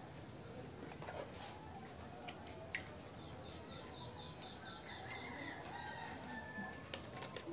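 A rooster crowing, a held call about five seconds in, with chickens clucking, and a few light clicks of spoons against plates.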